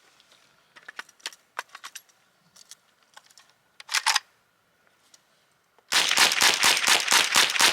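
Small handling clicks and a louder clack about four seconds in, then from about six seconds a fast string of .22 LR shots, roughly six a second, from a Chiappa AK-22 semi-automatic rifle being mag-dumped; it fires the string without a jam.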